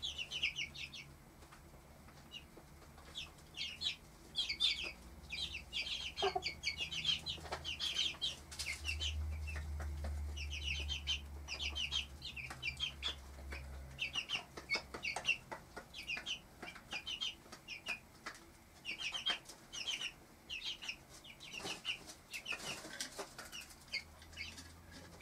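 Four-week-old cuckoo Marans chicks peeping: short high-pitched peeps in quick runs, over a faint low hum in the middle of the stretch.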